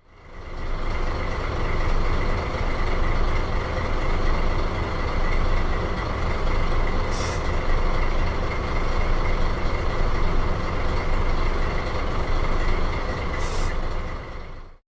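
Deutz 2011-series diesel engine running steadily after a timing belt replacement, with a steady high whine over the engine noise and two short hisses.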